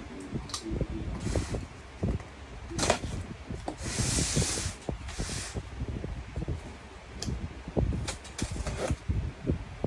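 A package being opened by hand: repeated knocks and thumps of a cardboard box being handled, with a few short rustling or tearing bursts, the longest and loudest about four seconds in.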